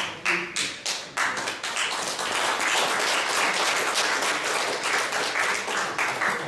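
Audience applauding: a few separate claps at first, swelling into steady applause about a second in.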